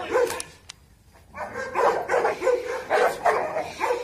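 Dogs barking in quick, repeated barks, aroused by stick agitation in protection training, with a brief pause about a second in.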